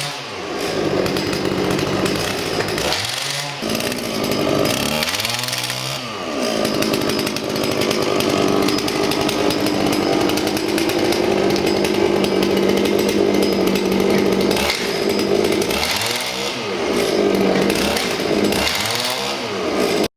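Small petrol engine of a portable impact wrench running, its speed dropping and picking up again several times, with a steady stretch at high revs in the middle.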